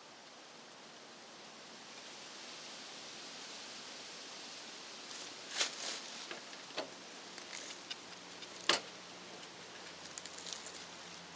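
A faint steady hiss, then from about halfway a scatter of sharp clicks and knocks, the loudest about three-quarters through, followed by lighter ticking, like tools and parts being handled during electrical work.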